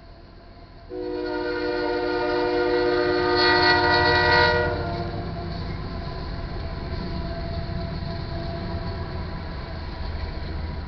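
Union Pacific GE AC4460CW locomotive's air horn blowing a loud, steady chord from about a second in until nearly five seconds. After it, the locomotives and freight cars rumble past through the crossing.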